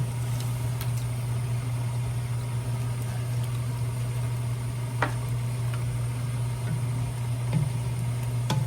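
Steady low hum from a kitchen appliance, such as a range hood fan or stove, with a few light clicks about five seconds in and near the end.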